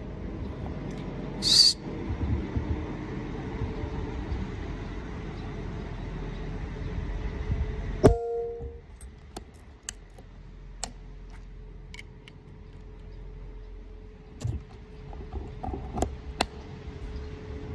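A single sharp crack from a .22 PCP air rifle being fired, about eight seconds in, with a brief ring after it. A few faint clicks follow over a steady hiss.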